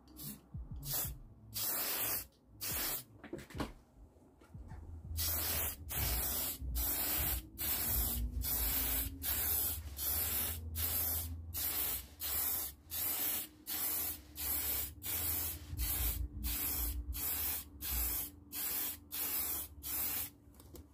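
Aerosol can of workable fixative sprayed over a charcoal drawing in short hissing bursts. A few bursts come first, then a brief pause about four seconds in, then a steady run of about two bursts a second.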